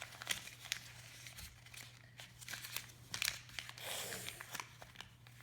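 Sheet of paper being handled and folded, with irregular crisp crinkles and sharp creasing clicks and a longer rustle about four seconds in.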